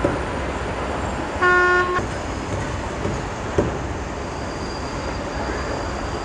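Steady rumble of city traffic with one short vehicle horn toot about a second and a half in, and a single sharp knock a couple of seconds later.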